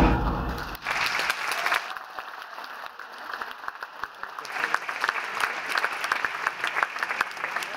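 Bass-heavy dance music cuts off about a second in, and an audience claps, the applause growing louder near the end.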